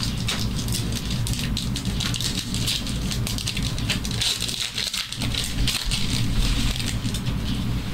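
Dense crinkling and rustling of trading-card pack wrappers being torn open and cards being handled and slid past one another.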